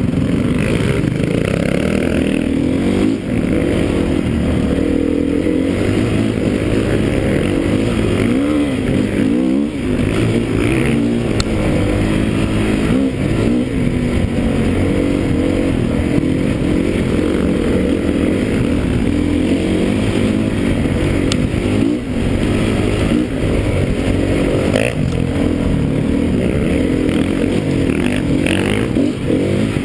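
An enduro dirt bike's engine running on-board under load, its revs rising and falling with the throttle over rough ground, with occasional knocks and rattles from the bike.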